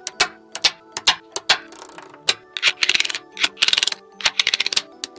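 Small magnetic steel balls clicking sharply as they snap together: single clicks, and two quick rattling runs of clicks about three seconds in as a row of balls is pressed into the block.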